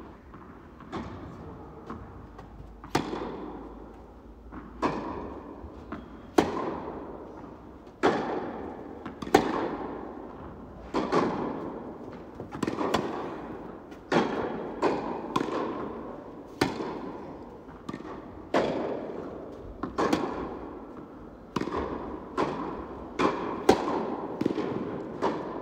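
Tennis rally: the ball struck by rackets and bouncing off the court, a sharp pop every second or so. Each one rings on in the echo of a large indoor tennis hall.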